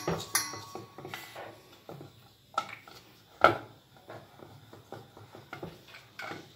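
Wooden rolling pin rolling out a ball of dough on a rolling board: soft, uneven rolling and rubbing, with a few sharp knocks, the loudest about three and a half seconds in.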